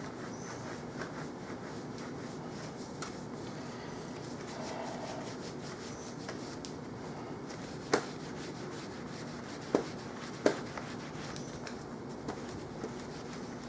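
Cloth rubbing over a laptop screen as it is polished, a soft steady scrubbing, broken by three sharp taps or clicks in the second half.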